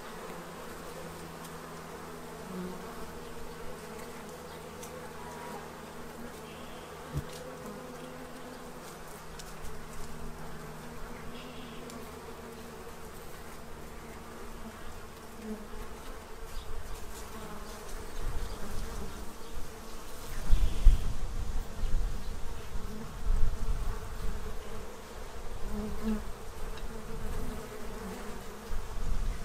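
A crowd of honey bees buzzing around a feeder: a steady hum made of several pitches. In the second half, uneven low rumbles grow louder underneath the hum.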